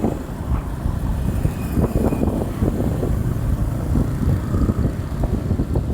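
A bus engine running close by, a steady low rumble.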